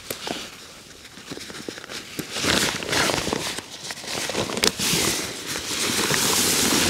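Crinkling and rustling of a backpack's stiff fabric as its top is opened and handled, with many small clicks. It gets louder about two and a half seconds in.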